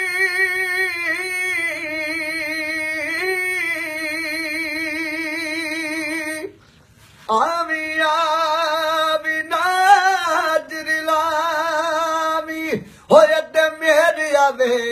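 A man singing a Punjabi folk song unaccompanied, holding long notes with a heavy vibrato. He breaks for a breath about six and a half seconds in, then holds another long note before moving into quicker ornamented phrases near the end.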